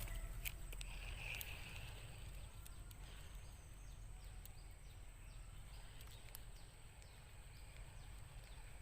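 Faint outdoor ambience: a steady high insect drone, a low rumble of wind on the microphone, and a few sharp clicks scattered through.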